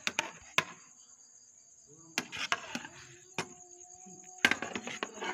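Metal spoon knocking and scraping against a large aluminium cooking pot while freshly cooked sweet rice is turned over. A few sharp clicks at the start, then two bunches of knocks and scrapes about two seconds and four and a half seconds in, over a steady thin high tone.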